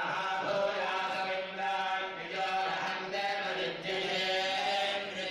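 Vedic Sanskrit chanting, sustained and melodic, with a steady low tone beneath.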